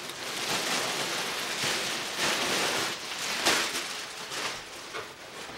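Thin clear plastic bag crinkling and rustling as a jacket is pulled out of it and handled, in irregular swells that fade toward the end.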